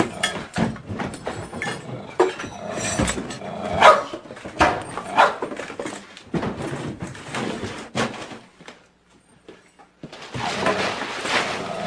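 A dog barking repeatedly in short, sharp barks, with a brief pause about nine seconds in and a longer run of barking near the end.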